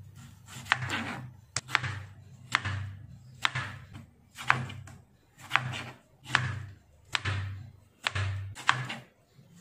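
Kitchen knife slicing a large tomato on a cutting board, about one cut a second, each a sharp tap as the blade meets the board with a dull thump.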